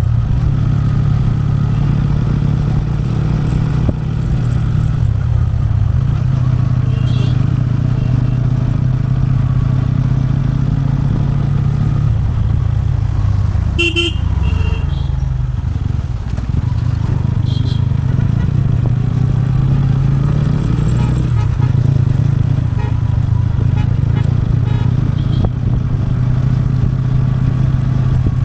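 TVS Ronin's single-cylinder engine running steadily under way on a motorcycle ride, with a brief sharp higher-pitched sound about halfway through and a couple of fainter ones.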